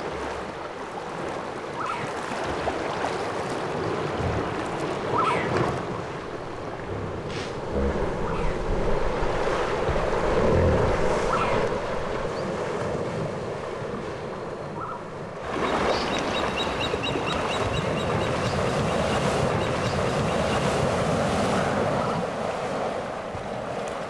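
Hippopotamus bulls charging through a shallow river: heavy splashing and churning water, with a few short animal calls.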